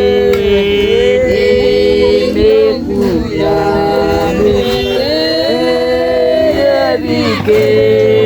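Music with singing: long held vocal notes that slide between pitches over a steady low drone.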